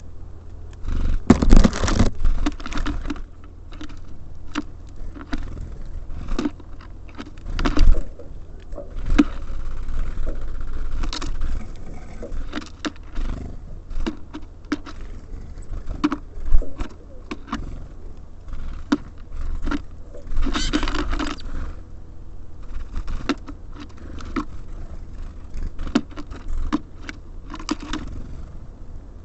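Small birds feeding at a bird feeder close to the microphone: irregular pecking taps, claws scrabbling and seed clattering, with busier flurries of scraping about a second in, near eight seconds and around twenty seconds. A steady low hum runs underneath.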